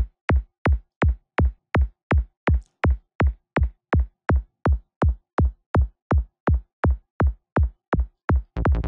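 Synthesised psytrance kick drum from the KickNBassGel software synth looping on its own at about three hits a second, each hit a short thump that sweeps quickly down in pitch. Near the end a rolling bass line comes in under the kicks.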